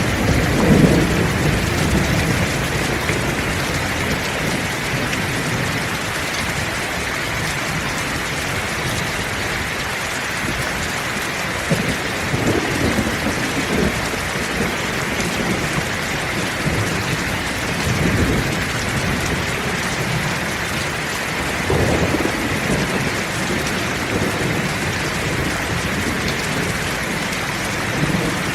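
Heavy rain falling steadily, with thunder rumbling low at the start and again a few times later.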